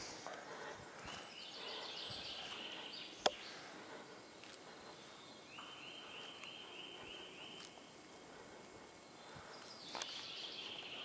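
Small songbirds singing: three phrases of quick, evenly repeated high notes, each about two seconds long. A single sharp click about three seconds in is the loudest sound.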